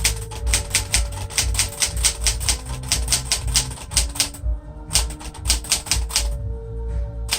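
Keys of a 1966 Sears Citation 12 manual typewriter, a Smith-Corona-built machine with pica type, striking in a fast even run of about six or seven strokes a second. About four and a half seconds in, the typing breaks into a few single strokes with short pauses.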